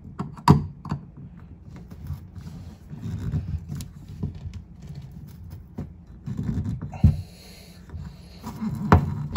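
Flathead screwdriver clicking and scraping against the slots of a kitchen sink basket strainer as it is held against turning: a sharp click about half a second in, scattered scraping and rustling, and more clicks near the end.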